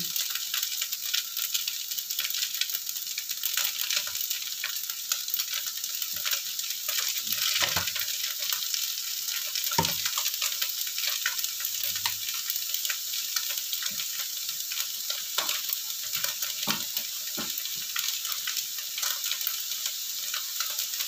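Rice vermicelli sizzling with a steady hiss as it is stir-fried in a wok, with a knock or scrape of the metal spatula against the pan now and then.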